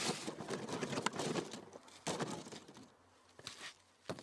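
Light rustling with a run of small knocks and clicks, dying away about three seconds in, with a few faint clicks after.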